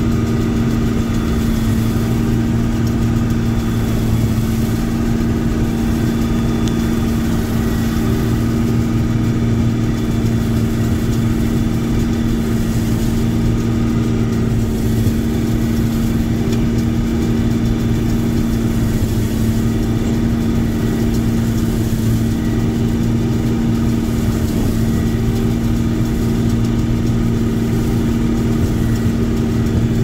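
Combine harvester running steadily under load while harvesting: a constant, loud drone of engine and threshing machinery with a deep steady hum.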